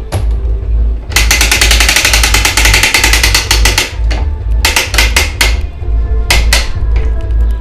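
Hand winch being cranked to tension a chain, its ratchet clicking in a fast run for about three seconds and then in shorter bursts, with background music underneath.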